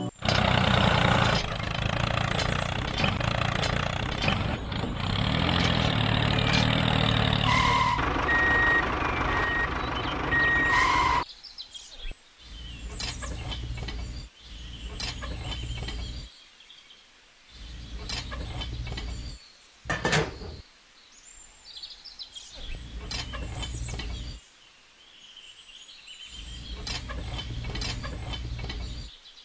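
Vehicle noise with a reversing beeper beeping for about the first eleven seconds. After that a low hum starts and stops in stretches of one to two seconds, with faint bird chirps.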